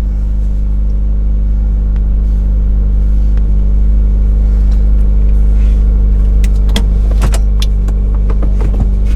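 Subaru WRX turbocharged 2.0-litre flat-four idling steadily through an Invidia Q300 cat-back exhaust while it warms up. A few short clicks and knocks sound near the end.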